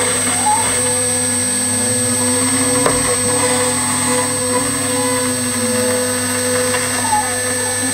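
CNC router spindle running with a small end mill cutting into a brass plate: a steady high-pitched whine with a constant mechanical hum beneath, and fainter tones rising and falling as the cutter moves along its path.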